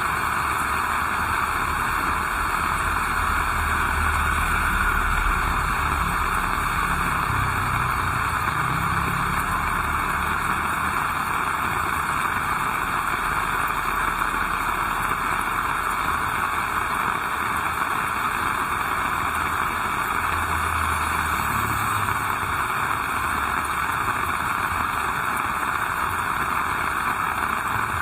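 Heavy rain falling, a steady dense hiss, with a low rumble underneath at times, near the start and again about two-thirds of the way through.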